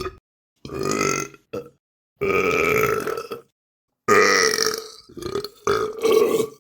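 A series of about six separate human burps of varying length. Some are short and clipped; the longest, about two seconds in, lasts over a second.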